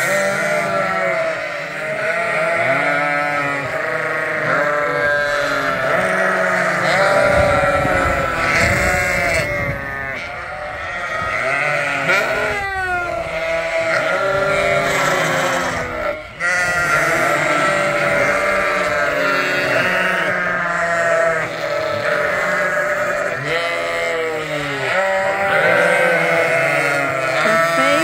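A large flock of ewes and lambs bleating continuously, many calls overlapping at once: the clamour of hungry sheep that have not yet been fed.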